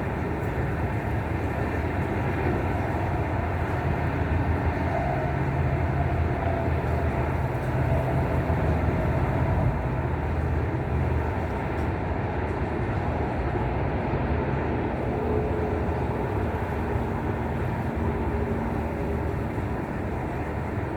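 Wind blowing against the microphone, a steady low rumble with a rushing noise over it.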